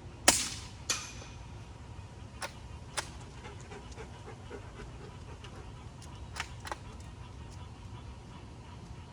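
A single shot from a suppressed .22 bolt-action rifle (Savage B22 FV-SR with a Warlock suppressor), a sharp crack near the start followed by a second, fainter crack under a second later. Then come two pairs of light clicks from the bolt being worked.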